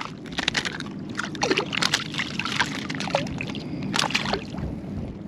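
Shallow bay water splashing and sloshing in short, irregular bursts as a small hooked trout thrashes at the surface while being landed by hand.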